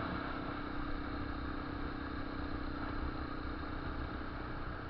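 Yamaha Lander motorcycle's single-cylinder engine running steadily while riding, with a constant hum and rushing road and wind noise on the microphone; no distinct exhaust pops.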